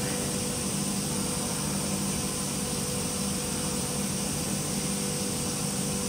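Steady machine hum with an even hiss. No distinct clunk or knock stands out.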